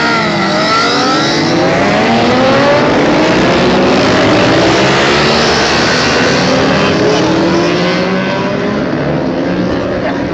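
A pack of racing motorcycles accelerating hard off the start line, many engines revving at once in overlapping rising pitches. It eases slightly as the field pulls away near the end.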